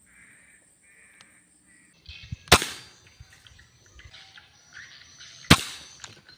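Two sharp gunshots from a bird-hunting gun, about three seconds apart, fired at doves. Faint insect chirring is heard for the first two seconds.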